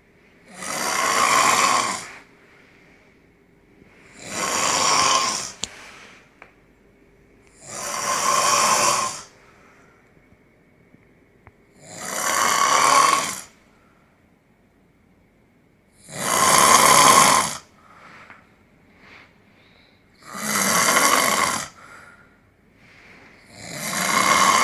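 A man snoring loudly in his sleep: seven long snores, one about every four seconds, each lasting about a second and a half.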